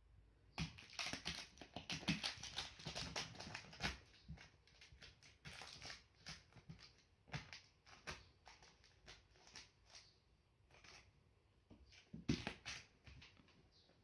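A kitten scrabbling and clawing at a cloth mat and a blanket on a rug, making rustling and scratching sounds. They come in a dense flurry over the first few seconds, then as scattered scratches, with another short flurry near the end.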